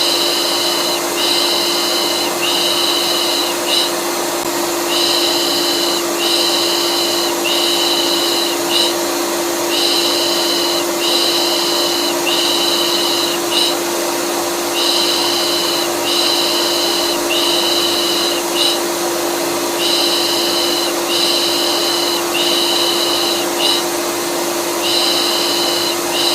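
Vacuum cleaner running with a steady hum, overlaid with rhythmic 'pış pış' shushing used to soothe colicky babies. The shushing comes as three long shushes and a short one, repeating about every five seconds.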